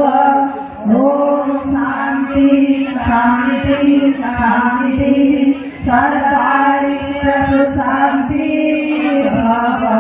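Women chanting a devotional hymn through microphones and loudspeakers, the sung line held on a steady pitch with short breaks for breath.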